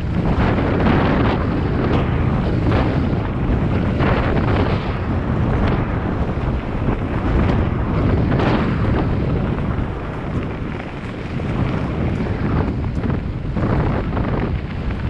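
Loud, uneven rush of wind buffeting a GoPro's microphone on a moving bike, easing slightly about ten seconds in.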